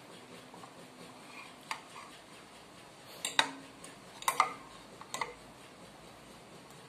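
Metal spoon and fork clinking against a ceramic bowl and plate while eating: several sharp clinks, some in quick pairs, the loudest just past the middle.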